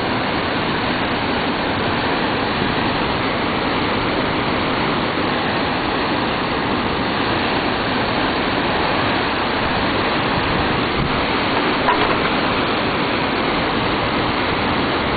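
Steady rushing of a powerful class V+ whitewater rapid pouring over and between boulders.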